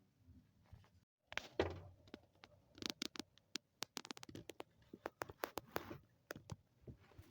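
A string of irregular sharp clicks and light knocks, a dozen or more scattered over several seconds after a short quiet start.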